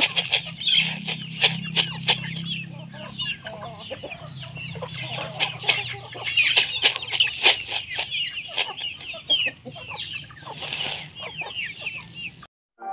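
A flock of native chickens clucking and chirping, with many short calls overlapping, over scattered sharp clicks and a low steady hum. It all cuts off suddenly near the end.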